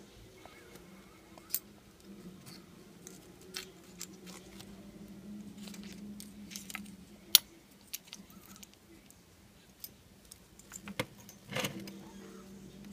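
Scattered small clicks and clinks of metal and plastic parts and tools being handled while working on an RC truck's clutch and spur gear. There is one sharp click about seven seconds in and a cluster of knocks near the end, over a faint steady low hum.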